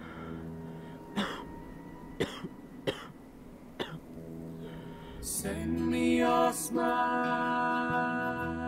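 A man coughing four times, short and harsh, over a low sustained music drone. About five seconds in, the music swells into a louder held chord.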